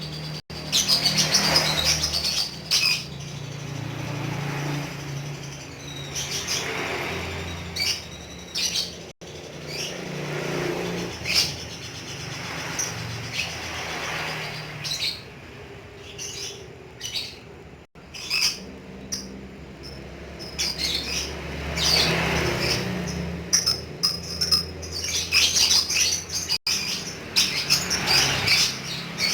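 Lovebird chattering in its long, fast 'ngekek' song: shrill, rapid chirps in runs of several seconds, rising and falling in loudness.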